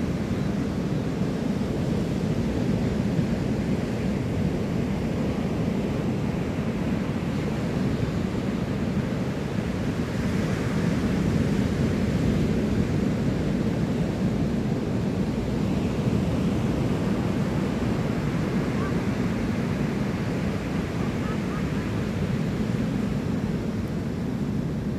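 Ocean surf breaking steadily on a sandy beach, an even rushing noise that swells a little about ten seconds in.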